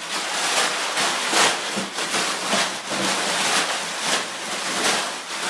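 Packing material in a shipping box rustling and crinkling loudly as it is pulled out and pushed aside by hand, in irregular surges.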